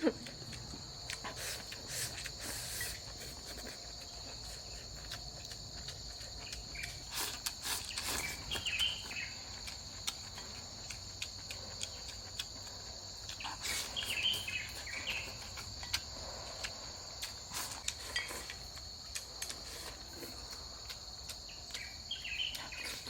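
Insects, likely crickets, trill in a steady, continuous high-pitched chorus. Scattered light clicks and a few short chirps are heard over it.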